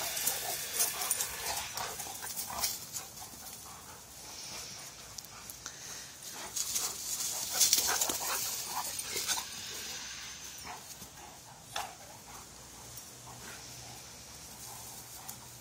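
A Greater Swiss Mountain Dog and another dog play-fighting right at the phone: scuffling, bumps and short dog vocal sounds. The sounds are busiest and loudest around eight seconds in, when a dog brushes against the phone, then ease off.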